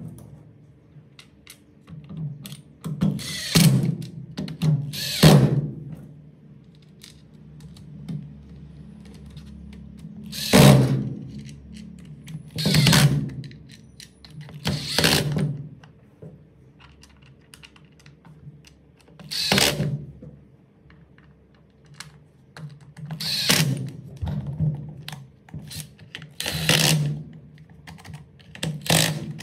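Short bursts of a cordless impact driver and knocks of a Makita DHR243 rotary hammer's plastic housing being handled on a workbench, as screws are driven back into the housing, heard over steady background music.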